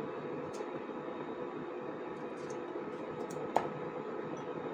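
Tomato being cut by hand with a knife over a ceramic bowl: a few faint small clicks and one sharp click of the blade against the bowl about three and a half seconds in, over a steady background hum.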